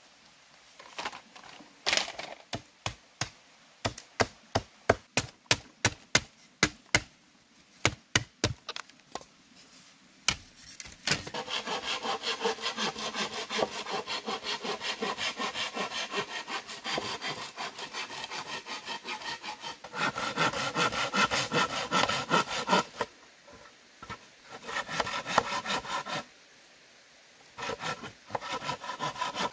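Wood being worked by hand: first a run of sharp separate knocks, one or two a second, then a fast steady rhythm of sawing strokes through wood, broken by two short pauses near the end.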